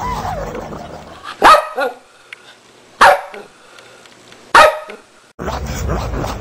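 A dog barking: three loud, sharp barks about a second and a half apart, the first followed at once by a shorter second bark. Music plays before and after the barks.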